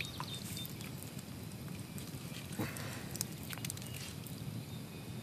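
Faint clicks and knocks of a wet, mud-covered AR-15 being handled and raised, a few light clicks near the middle, over a steady low outdoor background.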